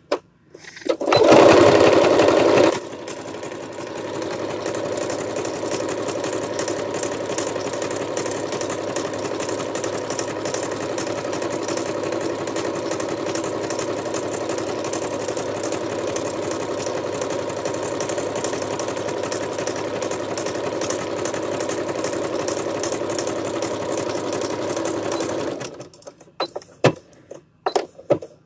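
Electric Singer sewing machine stitching through plush fabric. It starts about a second in and runs loudest for the first couple of seconds, then runs at a steady speed until it stops near the end. A few light clicks follow as the work is handled.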